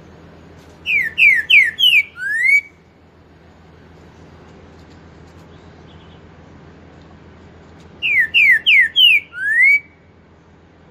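Green-winged saltator (trinca-ferro) singing its 'pantaneiro' four-note song with the 'boi' ending. It sings the phrase twice, about seven seconds apart: four quick falling whistles, then a longer rising note.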